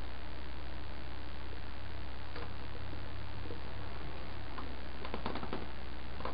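Faint clicks and ticks of a plastic tube and small parts being handled and set down on a cutting mat, a cluster of them about five seconds in, over a steady low hum.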